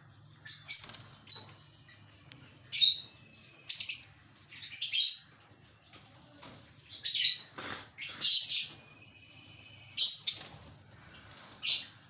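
Caged lovebirds giving short, shrill calls, about a dozen in irregular bursts.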